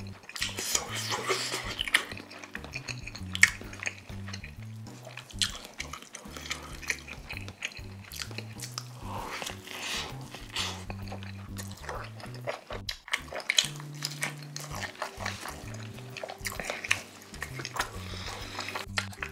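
Close-miked eating sounds: biting into and chewing a toasted egg sandwich, with crisp bread crackling and sharp clicks, over background music with a steady low bass line.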